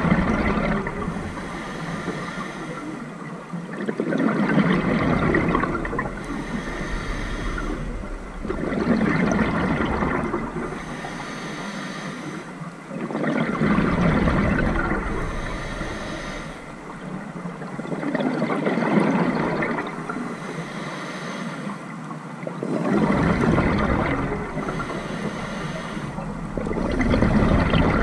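Scuba diver breathing through a regulator underwater: each exhalation sends out a rushing, gurgling surge of bubbles, about every four to five seconds, with a quieter hiss between breaths.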